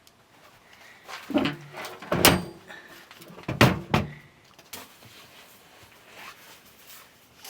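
A few hard knocks and clunks, about four between one and four seconds in, followed by faint small clicks and handling noise.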